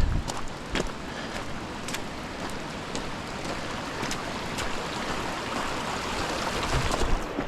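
Steady rain with scattered sharper drops, over a continuous rushing-water noise that swells a little toward the end. A couple of low thumps come right at the start and near the end.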